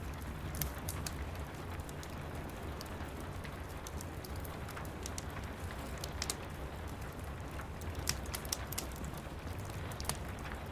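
Steady rain patter with a low rumble underneath, and the scattered sharp crackles and pops of a wood fire every second or so.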